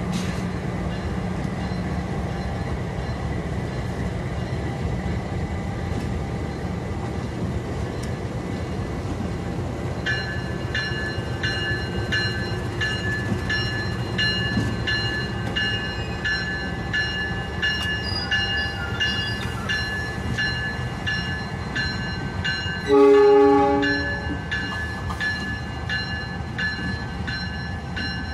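Diesel-electric locomotives running with a steady low engine rumble as they move past. About ten seconds in, a high ringing tone starts repeating about twice a second. Near the end a locomotive sounds one loud horn blast of about a second.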